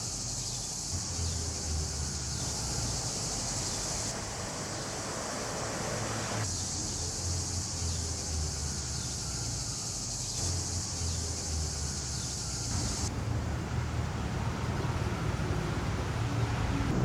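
Cicadas buzzing in a steady high band that stops about four seconds in, comes back a couple of seconds later and cuts off again near the two-thirds mark. Under it runs the low hum of traffic engines, which grows louder towards the end.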